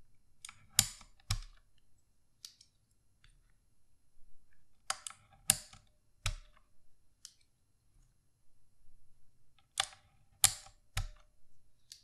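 Keycaps being pried off a Redragon Kumara K552 mechanical keyboard with blue clicky switches using a wire keycap puller: three groups of two or three sharp plastic snaps and clicks, about four to five seconds apart, as each cap comes loose.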